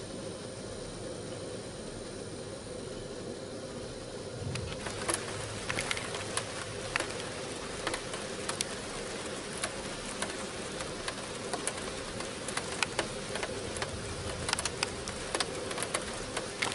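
Honeybees buzzing steadily at a hive being heated for varroa mite treatment. From about four and a half seconds in, scattered sharp ticks and taps join the buzzing.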